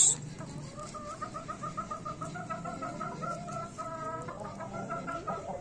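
A chicken clucking in a long, rapid, evenly paced string of clucks. It opens with a brief, loud, high-pitched burst.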